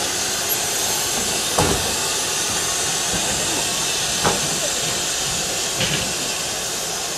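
Steady hiss of steam escaping from the 1909 steam locomotive E 211 as it stands on a turntable, broken by three short knocks.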